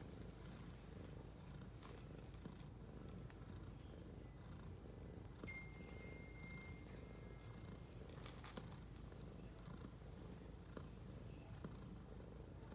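Faint, steady low purring from a mother cat and her suckling kittens while they nurse.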